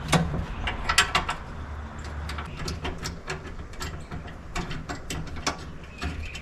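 Irregular metallic clicks and knocks from fitting and fastening the hinge hardware of an aluminum side-by-side door, over a steady low hum.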